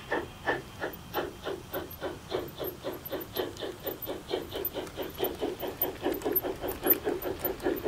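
G-scale model of the Harz narrow-gauge steam locomotive 99 236 chuffing as it pulls away with its coaches. The chuffs quicken from about two to about five a second as it gathers speed.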